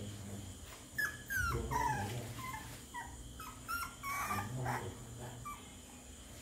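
Puppy whimpering: a run of short, high, falling whines, starting about a second in and dying away before the end.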